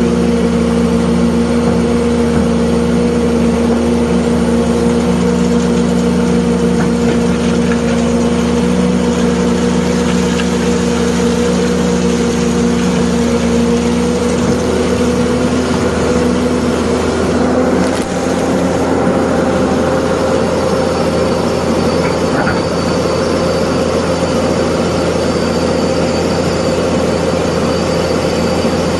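Hitachi excavator running steadily while it loads fine sand into a dump truck, a constant machine hum whose pitch rises slightly about two-thirds of the way through.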